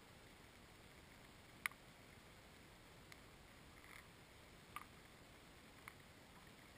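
Near silence broken by five small, sharp clicks, the loudest about a second and a half in, from handling fishing line and a metal gaff hook while a pike's line is hauled in by hand.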